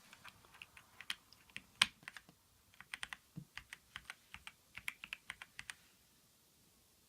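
Typing on a Keychron V6 Max mechanical keyboard with Gateron Brown tactile switches: a run of key clacks, a short pause about two and a half seconds in, then another quick run of keystrokes that stops about six seconds in.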